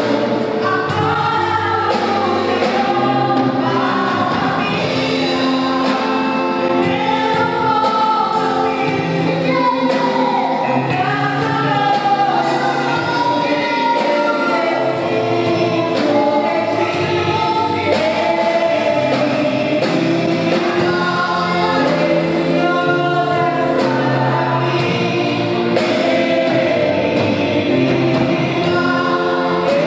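A church worship group sings a gospel song together with instrumental backing; the song is sung in Portuguese with several voices.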